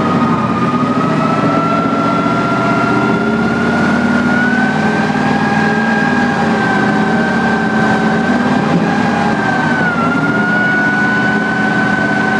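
ASCOD tracked armoured vehicle driving on a dirt track, heard from on top of the hull: a loud, steady diesel and running-gear noise. A high whine runs over it, slowly rising in pitch, dipping briefly about ten seconds in, then climbing again.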